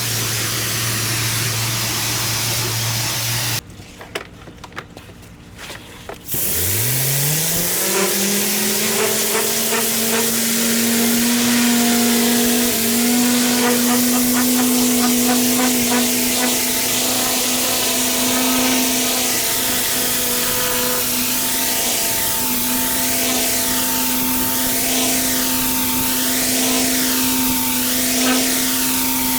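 Pressure-washing equipment: high-pressure water spraying, then cutting off suddenly about three and a half seconds in. Shortly after, a machine spins up with a rising whine and keeps running steadily.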